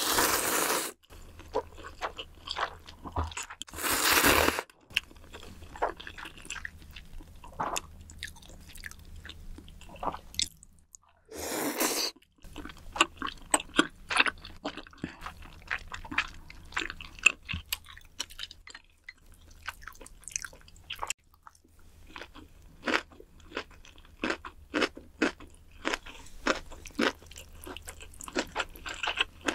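Close-miked eating. Noodles are slurped in three long pulls: at the start, about four seconds in, and about eleven seconds in. Between and after them run stretches of chewing, full of short crunchy and wet mouth clicks.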